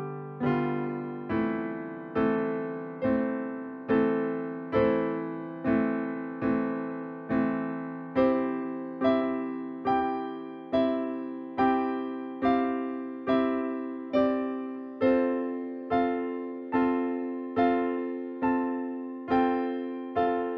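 Background piano music: slow, evenly paced chords, each struck and left to fade, about one a second.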